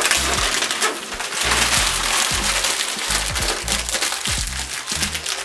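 Thin white protective wrap being pulled off a computer screen and crumpled by hand, rustling and crinkling continuously. Background music with a bass line plays underneath.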